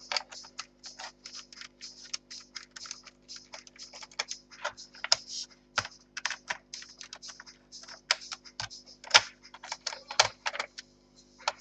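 Irregular small clicks and scrapes of hard plastic as the plastic covers on an Acer 5541G laptop are worked loose and handled, over a faint steady hum.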